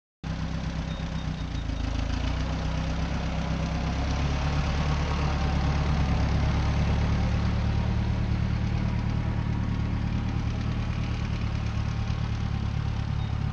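Ford 8N tractor's four-cylinder engine running steadily.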